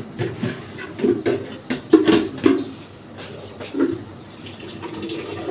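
Kitchen clatter: pots and utensils knocking and clinking in a string of separate short strikes, with a wooden spoon working in a large steel cooking pot.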